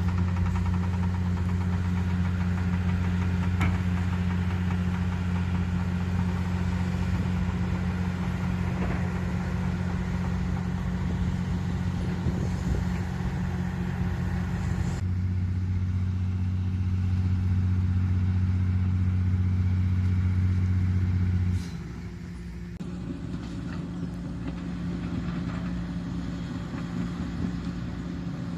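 Diesel engine of a hydraulic excavator running steadily with a low drone; the sound changes abruptly about halfway through and drops in level with about seven seconds to go.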